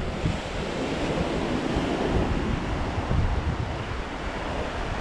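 Small waves washing onto a sandy beach, a steady hiss of surf, with wind buffeting the microphone in an uneven low rumble.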